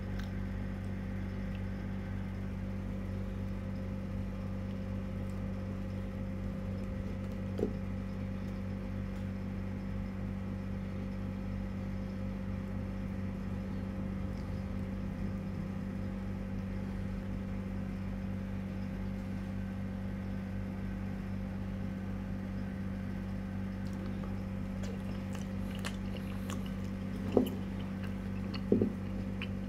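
A steady low hum, with a few short knocks: one light one about eight seconds in and two louder ones near the end as a bamboo tube of dessert is handled on the table.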